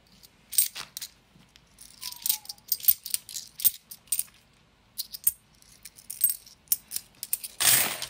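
50p coins clinking against one another as they are handled, stacked and sorted by hand: many short, irregular chinks. Near the end a plastic coin bag crinkles loudly.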